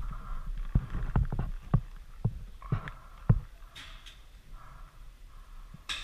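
Paintball markers firing nearby: an irregular string of sharp pops and thuds in the first half, then quieter.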